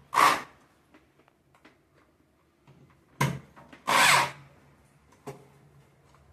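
Corded electric drill driving a screw through a metal hammock-hook plate into a wall plug, run in short trigger bursts: one at the start, then a brief blip and a longer half-second run a little past three seconds in, with faint clicks between.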